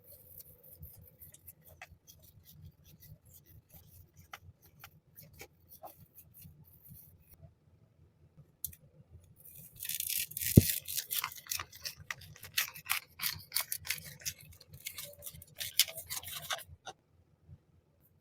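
Packaging being handled and opened: scattered light taps and clicks, then a sharp knock about ten seconds in, followed by about seven seconds of dense crinkling and snipping that stops abruptly.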